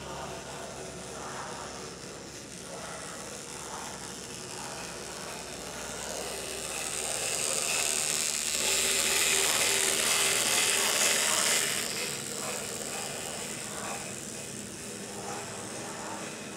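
Model electric steam locomotive running along the track, its motor gears and wheels whirring and clattering on the rails. It grows louder for several seconds in the middle as it passes close by, then fades again.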